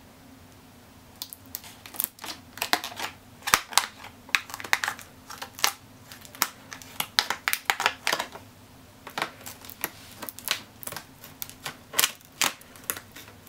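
Hard plastic clamshell packaging being handled and pried open, giving irregular sharp crackles and clicks with a short lull near the end.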